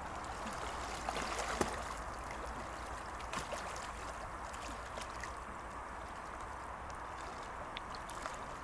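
Soft, steady splashing and lapping of lake water as someone wades and swims in it, with a few small splashes about one and a half seconds in.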